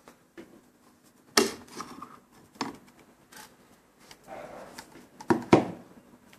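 Hard plastic clicks and knocks as a monitor's stand neck is worked loose from its mount and set down. A few separate knocks, with the loudest pair about five seconds in.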